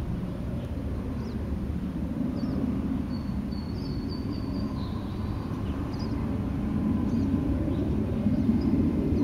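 Wind buffeting the microphone, making a steady low rumble, with a few faint high chirps around the middle.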